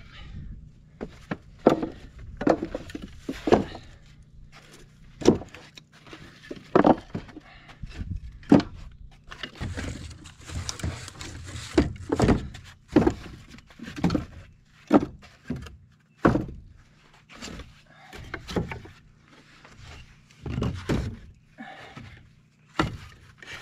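Short cut log rounds being set down and stacked on the wooden slats of a wooden crate: a string of irregular wooden knocks and thunks, about one a second.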